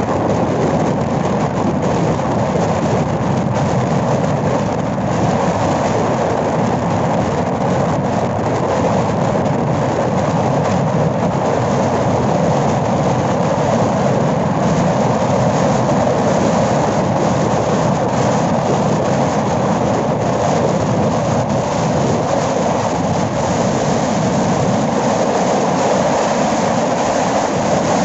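Motorcycle riding at highway speed, heard from the saddle: a steady, loud rush of wind and road noise that does not let up.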